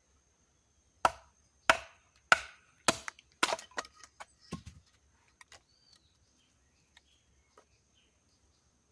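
Hatchet chopping wood: five sharp strikes about two-thirds of a second apart, then a run of lighter knocks and a few faint taps.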